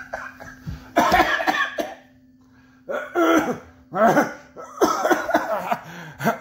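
A man coughing hard in a fit of about five loud, rasping coughs, a second or so apart.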